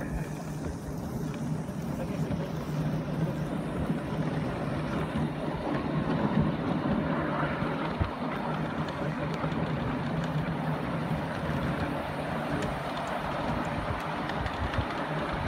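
7¼-inch gauge miniature Britannia steam locomotive hauling a passenger train, heard from the cars behind it: a steady running rumble of the engine and wheels on the rails, with a low hum throughout.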